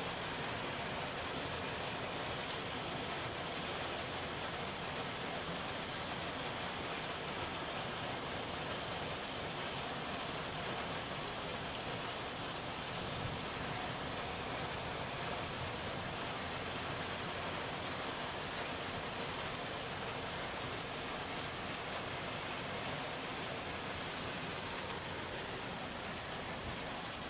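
Heavy rain pouring steadily onto flooded ground, a dense, even hiss without a break.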